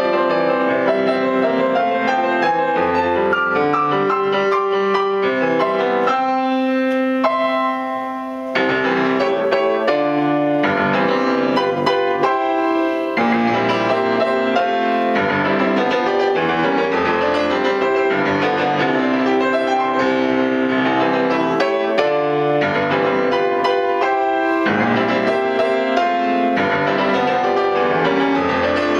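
Grand piano played solo: a continuous run of full chords and quick figures, with one chord held briefly about seven seconds in before the playing picks up again.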